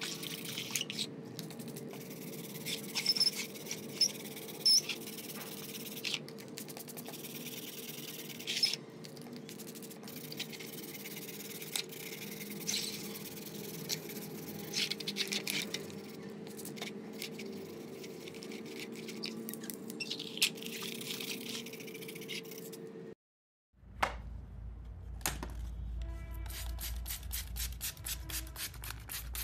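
Small brush scrubbing a clock's ship's-wheel frame in short scratchy strokes, over a steady hum. Near the end, after a sudden break, comes a faster run of even strokes.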